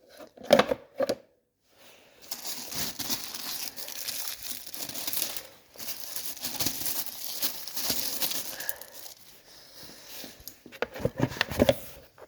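Crinkling and rustling for several seconds, like plastic or paper being handled, with a few short sharp sounds near the start and near the end.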